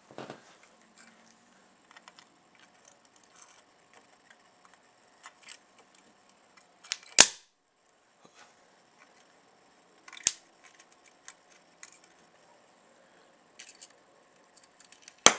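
120-volt mains current arcing across a VCR circuit board: scattered faint crackles and ticks, broken by three sharp snaps about seven, ten and fifteen seconds in, the first the loudest.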